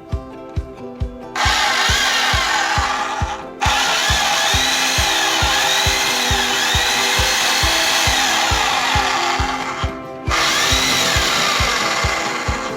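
Makita HM0830 electric demolition hammer running in three bursts of a few seconds each, the middle one the longest, a test run after its repair. Background music with a steady beat plays throughout.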